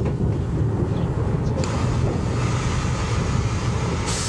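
Steady low rumble and hiss from a steam locomotive turning on a turntable. The hiss grows louder about one and a half seconds in and brightens again near the end.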